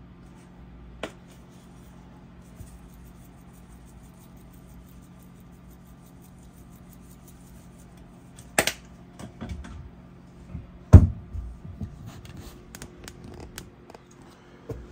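Kitchen handling noises over a steady low appliance hum: a small click about a second in, a sharp snap past the middle, then a heavier knock on the counter followed by a run of small clicks and rattles, as a spice shaker and other items are handled and set down.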